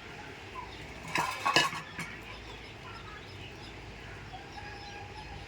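Metal cookware clattering on a kitchen stove: a quick cluster of sharp metallic knocks about a second in, then one more knock shortly after.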